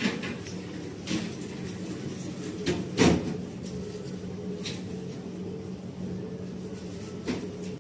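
Several separate knocks and clunks of things being handled and set down, the loudest about three seconds in, over a steady low hum.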